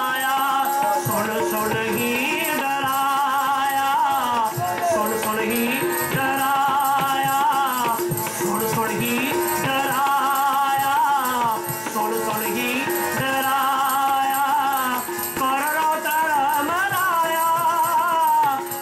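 Sikh kirtan: voices singing a wavering melody over sustained harmonium chords, with tabla played in a dense run of quick strokes.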